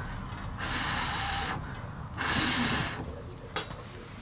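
Paper tinder being torn by hand: two rasping tears of about a second each, followed by a single sharp click.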